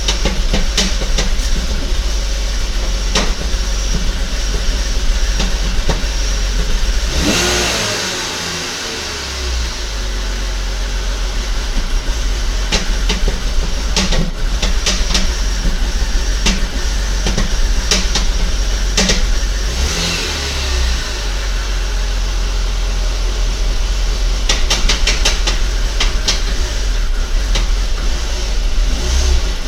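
2004 BMW 325i's straight-six engine running just after a cold start, with a nasty knock: sharp irregular clicks over the engine hum. The engine is briefly revved about seven seconds in and again about twenty seconds in.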